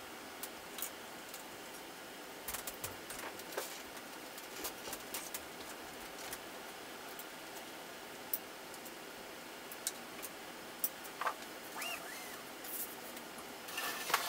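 Faint, irregular small clicks and taps of screws being driven with a hand tool into a 3D printer's extruder mount, with a brief squeak a couple of seconds before the end. A louder rattle of handling comes near the end as the printer's frame is gripped.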